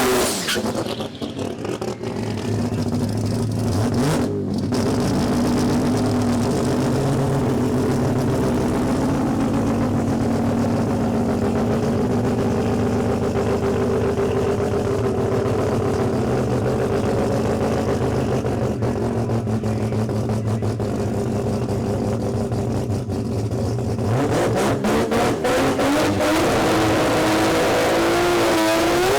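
Drag racing car engine running at a steady speed, its pitch climbing in the last few seconds as the revs rise.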